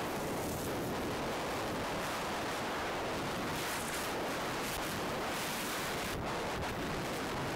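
Steady rushing noise of skiing downhill: wind buffeting the camera's microphone mixed with skis sliding over snow.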